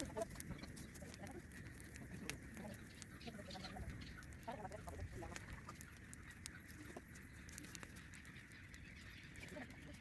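Faint bird calls: a few scattered clusters of short calls over a low background hum.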